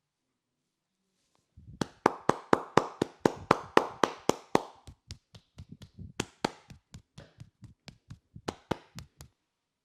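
A masseur's hands slapping rhythmically in percussive massage strokes, about four quick strikes a second. The strikes are loudest for the first few seconds, then go on lighter with a few harder ones, and stop shortly before the end.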